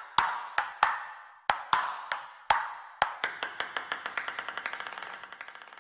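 Percussive intro sound effect: a few sharp, ringing hits spaced irregularly, then from about halfway a run of ticks that speeds up and fades away.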